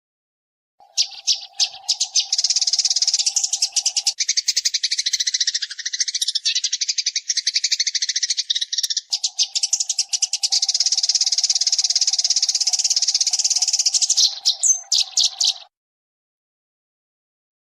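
Eurasian tree sparrows chirping and chattering in a rapid, continuous stream. The calling starts about a second in and cuts off abruptly about two seconds before the end, with a low steady hum beneath it in two stretches.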